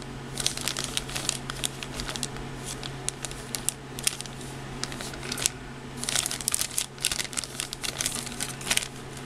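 Clear plastic bag holding plastic model-kit parts runners crinkling and crackling as it is handled and turned over, on and off, with a calmer stretch around the middle.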